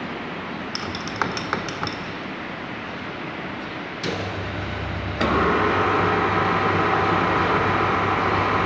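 Lathe levers and switches clicking with a few metallic clinks, then a knock about four seconds in as the lathe starts with a low hum. A second later it steps up to louder steady running with a constant whine.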